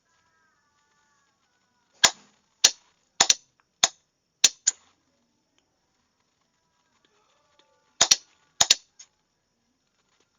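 Morse code being sent as sharp, loud clicks in irregular spacing, a letter group for trainees to copy. About seven clicks fall between two and five seconds in, then a tighter run of five comes near the end.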